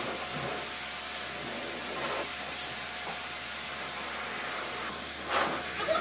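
Dog-wash station's blower dryer blowing air through its hose: a steady hiss, with two brief louder sounds about two and a half and five and a half seconds in.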